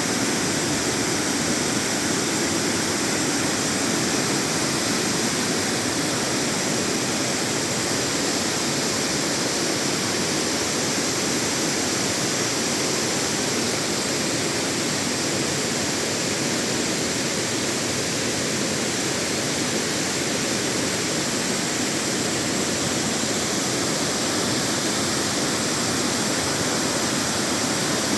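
Fukuroda Falls, a large tiered waterfall, thundering steadily: an even wash of falling water that does not change.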